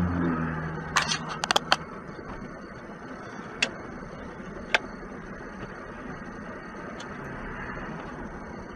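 Steady road and engine noise inside a moving car's cabin, with a quick run of sharp clicks about a second in and a few single clicks later.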